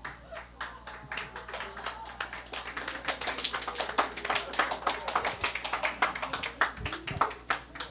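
Audience clapping in response to a punchline: many hands clapping irregularly, building up over the first seconds, densest in the middle, then thinning out near the end.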